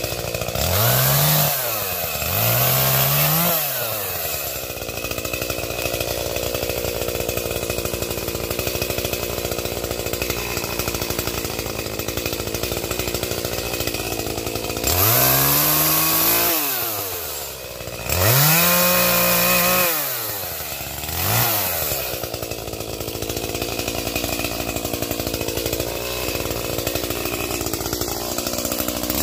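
Two-stroke chainsaw idling, throttled up five times in short bursts of a second or two, each time rising in pitch and falling back to idle, as when limbing the tops of a felled tree.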